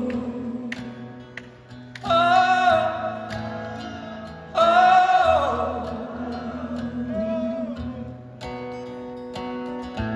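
Live rock ballad: a male singer with an acoustic guitar, heard from the audience. He sings two loud, long held notes, one about two seconds in and another about four and a half seconds in, over steady strummed guitar.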